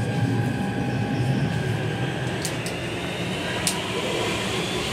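Inside a moving passenger train: a steady rumble with a steady high whine, a lower whine that fades out about halfway, and a few sharp clicks.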